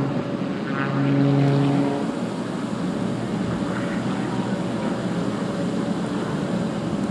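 Extra aerobatic plane's propeller engine droning overhead during a display, a steady hum for about the first two seconds that gives way to a broader rushing noise.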